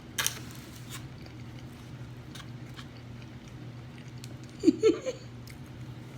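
Faint scattered clicks and smacks of food being handled and mouth noises, over a low steady hum. About five seconds in comes a short hummed "mm-mm".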